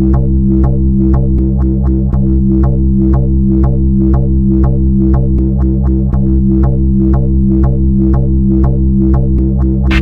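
Electronic background music: a held synthesizer chord and bass under a quick repeating note, about four a second.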